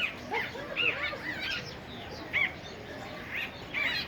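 Several birds calling with short chirps that rise and fall in pitch, overlapping irregularly throughout.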